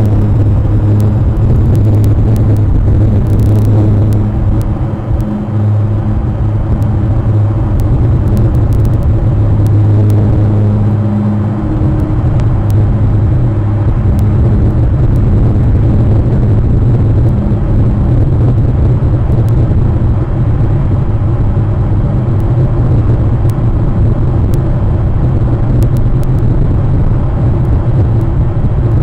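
A steady, loud low hum with a rumble beneath it, holding one pitch, with faint scattered clicks.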